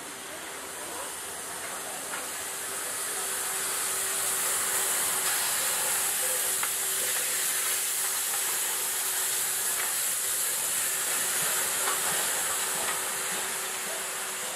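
Steam locomotive rolling past with a steady hiss of escaping steam, which grows louder over the first few seconds as it draws near and eases off near the end. A faint steady hum runs underneath.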